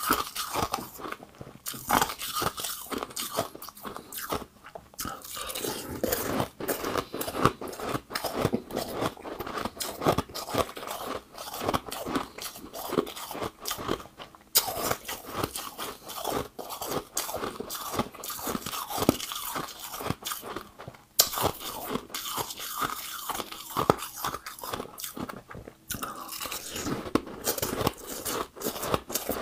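A person biting and chewing balls of ice, with dense, irregular crunching of ice between the teeth, picked up by a clip-on microphone close to the mouth.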